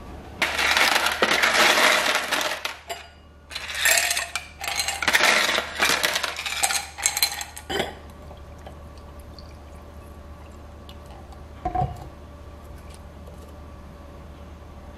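Ice cubes tumbling into a stemmed glass, clinking and rattling against the glass and each other in two long bursts. The rest is quieter, with one brief knock about twelve seconds in.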